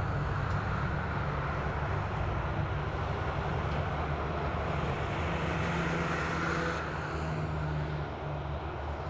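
Steady engine drone from airport fire trucks pumping their water cannons, under an even hiss of the spraying water. A slightly stronger low hum comes in about five seconds in and fades near the end.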